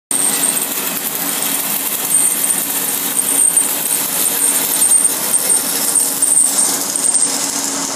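Shielded metal arc (stick) welding arc crackling and sizzling steadily as a fill pass is run on a pipe joint, with a faint steady hum underneath.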